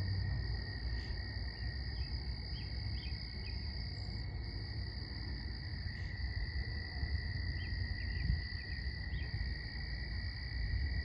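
A steady, high-pitched chorus of calling animals, heard as two unbroken trilling tones, with a few short faint chirps over a low rumble.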